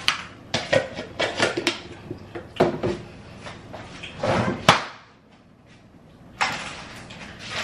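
Kitchen doors and containers being handled: a run of knocks and clunks, the loudest about four and a half seconds in. A short lull follows, then a steady noise starts abruptly near the end.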